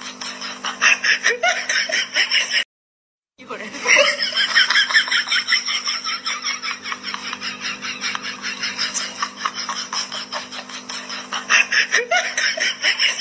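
Laugh track of giggling, snickering laughter in quick pulses. It cuts out completely for under a second about three seconds in, then resumes.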